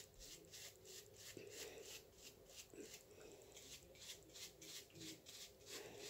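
Short hair being groomed in quick repeated strokes, a faint scratchy rustle about three to four times a second.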